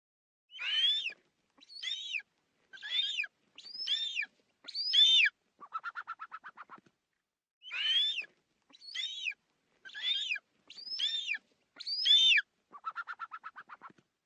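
Eagle calls: five high, down-slurred screeches about a second apart, then a quick chattering run of short notes. The whole sequence plays twice.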